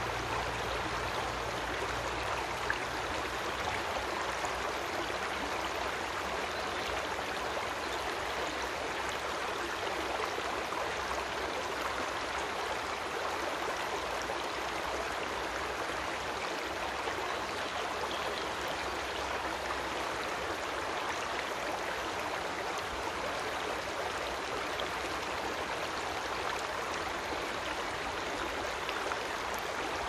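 Creek water flowing, a steady, even rush of running water.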